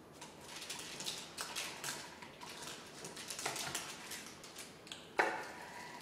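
Kitchen knife cutting through a slab of baked muesli bar (oats, almonds and dried fruit) on baking paper over a wooden chopping board: a run of crunching, scraping strokes, with a sharper knock about five seconds in.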